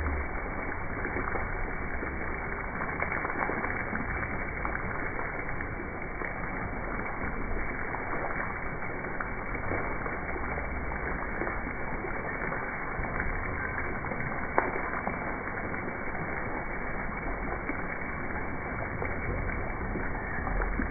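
Fountain water splashing steadily into a stone basin, with one brief tap about two-thirds of the way through.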